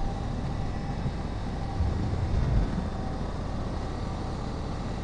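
Honda Africa Twin's parallel-twin engine running while the motorcycle rides a winding mountain road, under steady wind rumble on the microphone that swells briefly about two seconds in.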